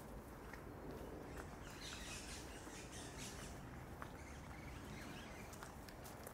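Footsteps on a walking track, soft scattered clicks, over a faint steady low hum of outdoor ambience. A bird chirps a few short notes about two to three and a half seconds in.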